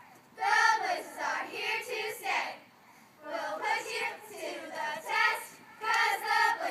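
Young cheerleaders chanting a cheer together in short rhythmic phrases, with brief pauses between the phrases.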